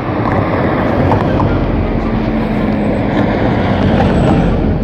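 A car driving past close by on the road, its engine and tyre noise swelling to a peak about four seconds in and then falling away.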